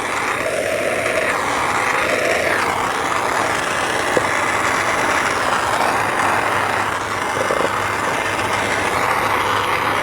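Gas torch flame running steadily, burning the soft grain out of a green oak hollow form.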